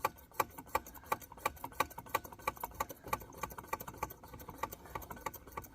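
A rapid, irregular run of light clicks and taps, about three to five a second.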